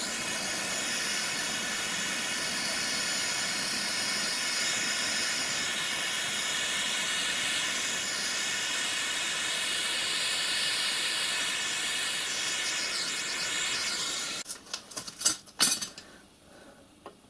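Handheld gas torch flame hissing steadily as a brass letter is heated and tinned with solder. The flame cuts off about three-quarters of the way through, followed by a few sharp clicks and knocks.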